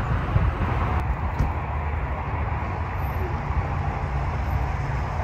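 Steady low rumble of a moving vehicle's road and engine noise.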